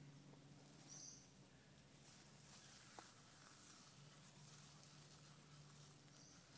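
Near silence: the faint crackle and rustle of a small tinder fire being tended, with two short high bird chirps, one about a second in and one near the end.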